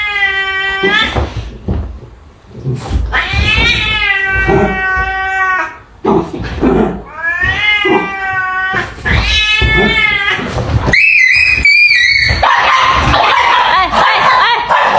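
A domestic cat yowling in a run of long, drawn-out calls that rise and fall in pitch, about five of them. Near the end it gives way to a shorter, higher call and then a denser, noisier sound.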